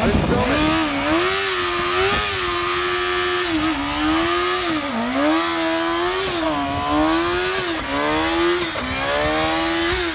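Kawasaki Ninja ZX-6R 636 inline-four sport bike engine held at high revs during a burnout on grass, its note dipping briefly and climbing back several times as the rear tyre spins and smokes.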